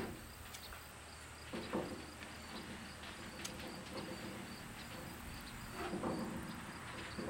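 Soft puffing as a briar tobacco pipe is lit with a lighter and drawn on, in two spells, about a second and a half in and again around six seconds in. Behind it, faint steady chirping of crickets.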